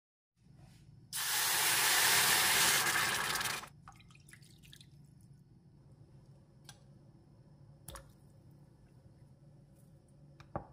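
Water rushing loudly for about two and a half seconds, then a faint steady hum with small bubbling from a stainless steel pan of water heating on a burner, and a few light clicks as butter and salt go into the pan.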